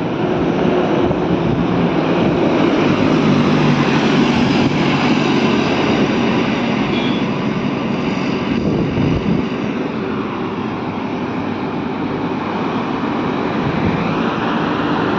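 Heavy diesel goods trucks running along the highway past the roadside: a steady engine drone with tyre noise, a little louder about four seconds in.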